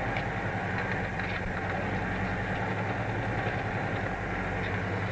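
Steady running noise of a steam locomotive with a low hum under it, heard from an old reel-to-reel tape recording.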